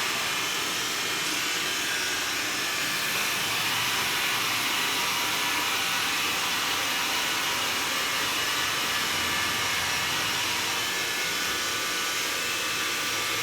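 Xiaomi Mi robot vacuum cleaning: the steady whir and hiss of its suction fan running without a break.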